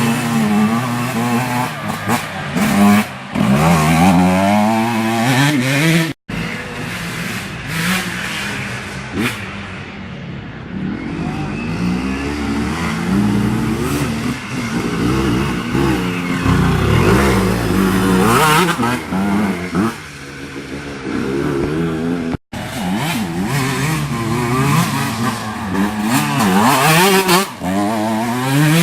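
Vintage motocross motorcycles racing, their engines revving up and falling back again and again, with two very short breaks in the sound.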